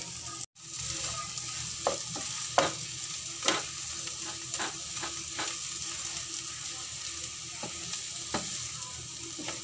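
A wooden spatula stirring and scraping a mashed-potato and onion filling around a non-stick frying pan, with irregular scrapes and taps against the pan over a steady sizzle of the mixture cooking.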